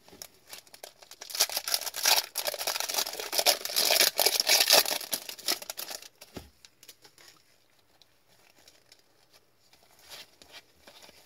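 A hockey card pack's wrapper being torn open and crinkled by gloved hands: a dense crackle from about a second in until about six seconds. Then fainter rustling as the cards are handled.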